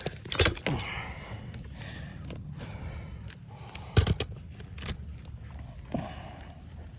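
Scattered sharp knocks and clicks with light scraping from hand work on asphalt roof shingles, over a steady outdoor background; the loudest knock comes about four seconds in.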